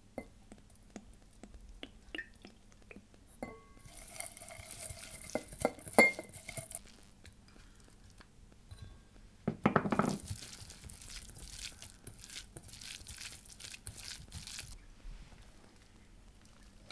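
Ingredients being tipped and stirred in a stainless steel mixing bowl: scattered clinks, a ringing metal scrape about four seconds in with a sharp clink at about six seconds, a knock near ten seconds, then several seconds of scraping and stirring.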